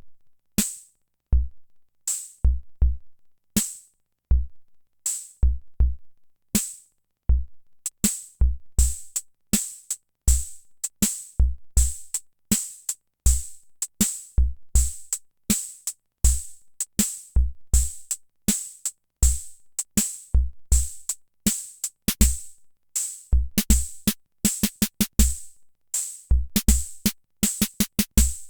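Hammond Auto-Vari 64 analog rhythm machine playing a preset beat of deep bass-drum thumps, snare-like hits and hissy cymbal ticks. The pattern gets busier after about eight seconds, with quick rolls of rapid hits near the end.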